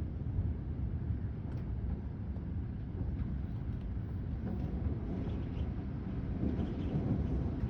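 Thunderstorm wind gusting across the microphone as a steady, fluctuating low rumble, with faint scattered ticks over it.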